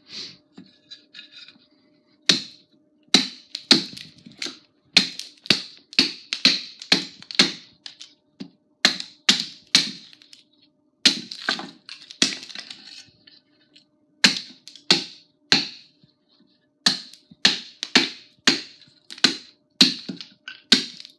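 Forged tomahawk chopping into the end of an upright 2x4 on a wooden chopping block: a long series of light, quick wrist-driven chops, about two a second with a few short pauses, as the end of the board is cut to a point.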